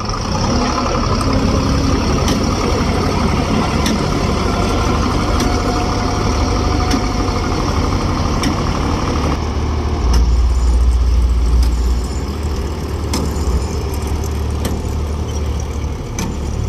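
Heavy diesel engines of a stuck combine harvester and a JCB backhoe loader running steadily during a mud recovery, with a deeper, louder rumble for about two seconds past the middle. Faint sharp clicks recur throughout.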